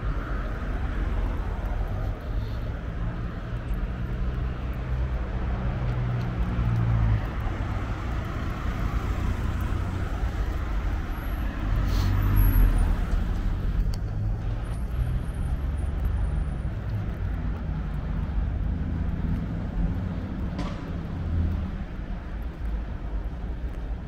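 Road traffic on a city street: cars passing with a steady rumble, swelling to its loudest about halfway through as a vehicle goes by close.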